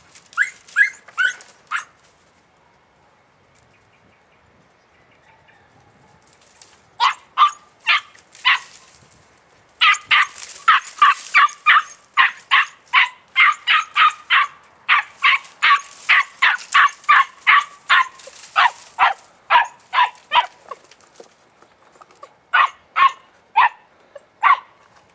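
Podenco puppy barking in short, high yelps: a few at the start, a pause of several seconds, then a rapid string of about two or three barks a second for some ten seconds, thinning out near the end.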